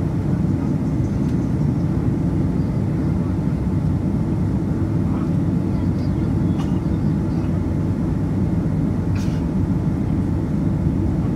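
Steady cabin noise inside a Boeing 767-300ER airliner: an even, low rumble of engines and airflow. There is a faint click about nine seconds in.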